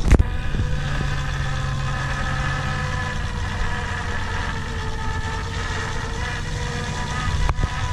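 Fishing boat's engine and hydraulic crab-pot hauler running steadily while a pot is hauled up: a low drone with a steady whine of several even tones over it.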